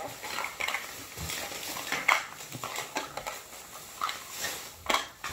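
Irregular rustling and crinkling of plastic toy packaging being handled, with scattered small clicks and crackles.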